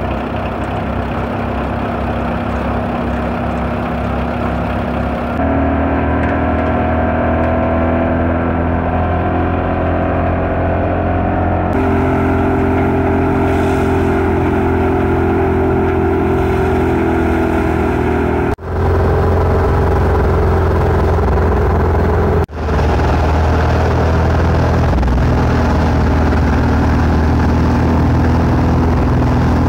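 Belarus MTZ-50 tractor's four-cylinder diesel running steadily under load, driving a belt-powered threshing machine whose drum whirs as crop stalks are fed in. The sound breaks off abruptly a few times and resumes at a slightly different pitch.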